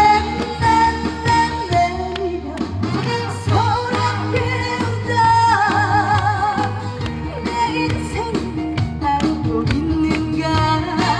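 Live trot song sung by a female singer over a band backing through a concert PA, with a long held note sung with strong vibrato about halfway through.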